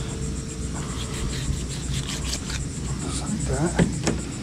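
Insects chirping steadily in the background in a fast, even pulse. Over it come soft scrapes and clicks of a fillet knife cutting the fins off a small shark on a plastic cutting board, with a short squeak and then a sharp click near the end.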